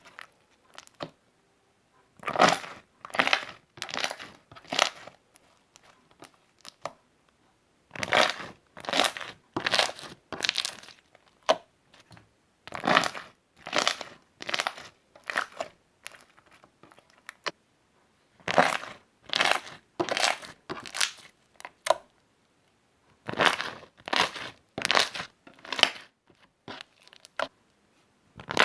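Slime being squeezed by hand close to the microphone, each squeeze a crackly squish about half a second long. The squishes come in runs of five or six, with short pauses between the runs.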